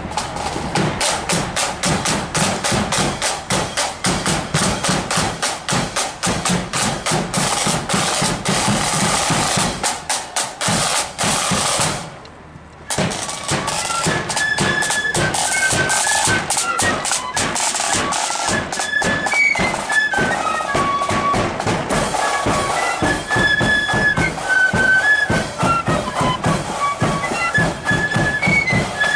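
Marching flute band: snare and bass drums beat alone at first, the sound dips briefly about twelve seconds in, then the flutes come in with a high melody over the drums.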